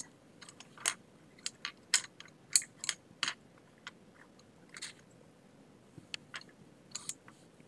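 A pen or marker making short, irregular strokes on paper, heard as faint scratchy ticks, as numbers are written beside a hand-drawn diagram.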